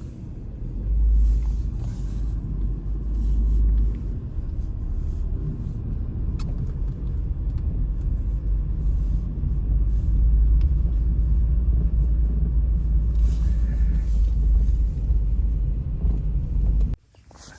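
Strong wind buffeting the microphone in a snowstorm: a heavy low rumble with hiss that swells in gusts, then cuts off suddenly near the end.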